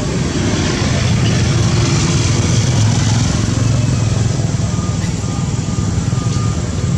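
A loud, steady low rumble with no clear events in it.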